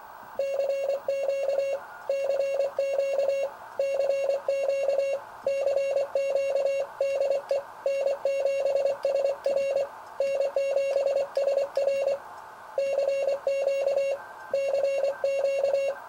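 Morse code (CW) sent as a steady beep of about 600 Hz, keyed on and off in short dots and longer dashes. The characters come in quick groups with short pauses between them, over a light hiss from the radio.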